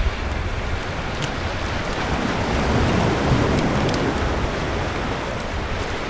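Sea surf washing on a beach: a steady rush of water that swells louder about halfway through as a wave breaks and runs up, then eases back.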